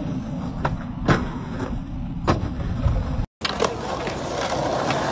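Skateboard wheels rolling on concrete with a steady rumble, broken by sharp clacks of the board striking the ground, loudest about a second in and again just past two seconds. The sound cuts out for an instant, then the rolling rumble and a few more clacks resume.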